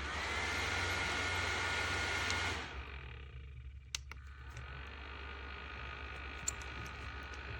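Small battery neck fan running with a steady whir whose pitch rises slightly just after the start, then drops to a quieter, lower speed a couple of seconds in. There are two sharp clicks about four seconds in.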